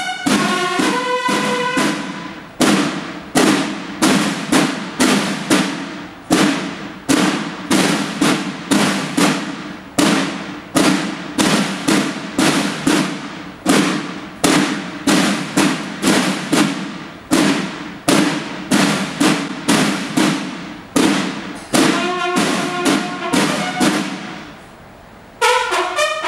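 Mexican banda de guerra of bugles and drums playing a military march: bugle notes open it, then the drums beat a steady cadence of about two strokes a second, and the bugles come back in near the end.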